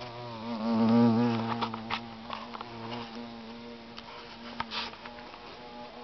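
A fly buzzing in flight, its drone wavering in pitch and loudness and swelling about a second in, with a few light ticks along the way.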